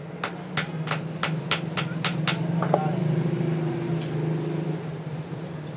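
Light hammer taps on the riveted steel pivot of hand-forged tongs on an anvil: about eight quick taps, roughly four a second, then a brief metallic ring and one more tap. A steady low hum runs underneath.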